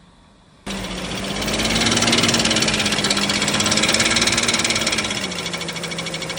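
BMW M54 3.0 straight-six engine running, heard from underneath, with a fast metallic knocking clatter from its cracked flexplate (torque-converter drive plate). It comes in suddenly under a second in and keeps going steadily.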